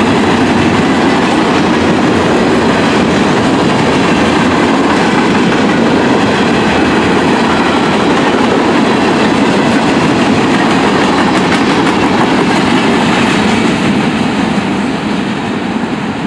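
Freight train cars rolling past close by: a steady loud rumble of wheels on rail with clickety-clack over the joints, easing slightly near the end.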